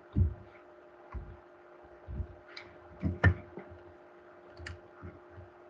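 Scattered desk-handling sounds from working a computer pen and mouse: about six soft knocks, with a couple of sharper clicks in the second half, over a faint steady room hum.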